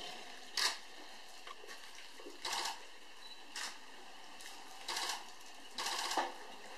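Camera shutters firing in short rapid bursts, about once a second, some bursts running several frames.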